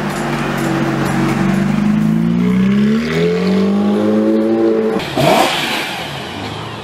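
Sports car engine revving: the note is held fairly steady, then climbs in pitch about halfway through. It changes abruptly near the end to short, sharp throttle blips.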